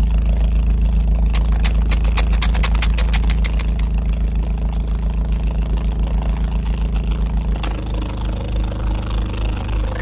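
Case 480D backhoe's diesel engine running steadily, heard from inside the cab. About a second in comes a quick run of a dozen or so sharp clicks, and near the end the engine note changes and takes on a stronger, regular pulse.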